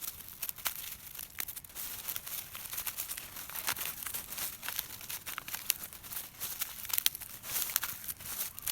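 Dry corn husks and leaves crinkling and crackling, a dense run of sharp crackles.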